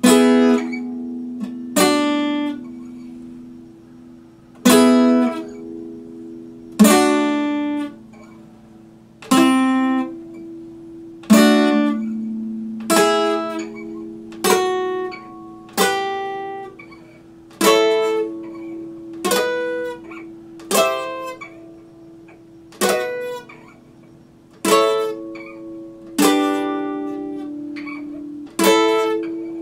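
Epiphone steel-string acoustic guitar played slowly: single strummed chords, each left to ring out and fade before the next, about one every one and a half to two seconds.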